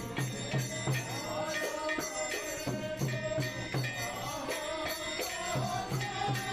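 Music with jingling percussion over a steady beat and a pulsing bass note.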